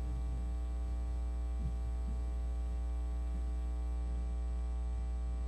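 Steady low electrical mains hum with a faint buzz above it.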